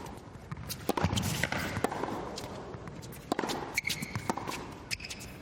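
Tennis rally on an indoor hard court: a series of sharp racquet strikes and ball bounces, with a few short shoe squeaks between them.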